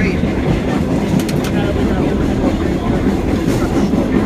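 Vintage R38/R40 New York City subway train running along the track, heard from inside the operator's cab: steady wheel-on-rail running noise, with a few sharp clicks a little over a second in.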